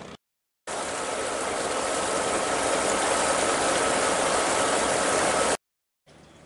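A boat's engine running close by: a loud, steady mechanical clatter with a faint steady whine in it. It cuts in abruptly just under a second in and cuts off abruptly about a second before the end.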